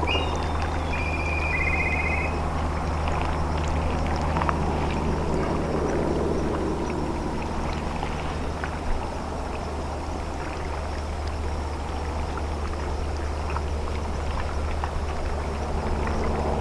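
Steady low drone of a ship's engine running, with water washing and churning over it.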